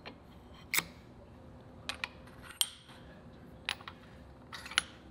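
Metal engine parts clinking as they are handled and slid onto a rotary engine's eccentric shaft: about eight short, sharp metallic clicks, irregularly spaced.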